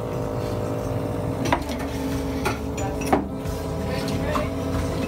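Electric vacuum wine-bottle filler running with a steady motor hum while it fills a wine bottle. A few sharp knocks and clinks of glass bottles being handled sound over it.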